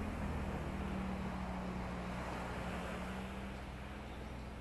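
A motor engine's low steady hum, dropping a little in pitch and slowly fading as it moves away, over a steady wash of surf and wind.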